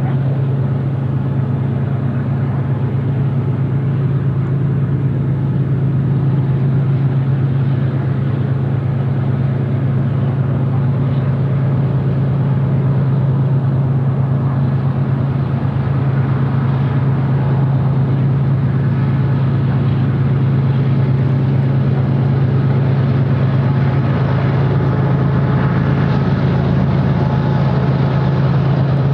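Union Pacific GE C45ACCTE (ES44AC) diesel locomotives working a freight train, a steady low engine drone that grows slightly louder as the train approaches.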